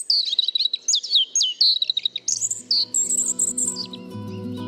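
Small birds chirping in a rapid run of short, high, gliding calls. A little over two seconds in, soft music with steady low notes comes in underneath.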